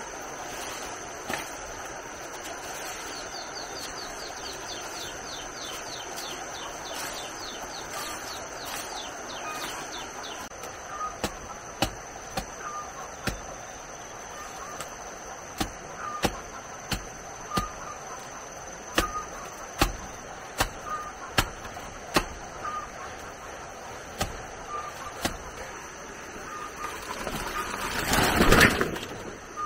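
Sharp cutting strokes, roughly one a second, as grass and plant stems are cut by hand among the undergrowth. Near the end leaves brush loudly across the microphone, the loudest sound.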